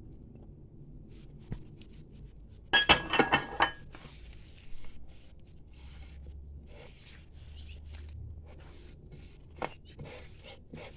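Hands kneading soft, crumbly fekkas dough into flour in a bowl: soft squishing and rubbing, with a louder scraping burst against the bowl about three seconds in.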